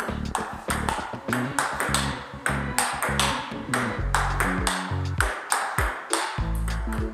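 Table tennis rally: a celluloid ball pinging off the bats and the table, over background music with a bass line.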